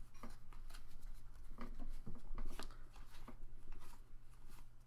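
Pokémon trading cards and booster pack being handled: a string of short, crisp rustles and soft card slaps, over a low steady hum.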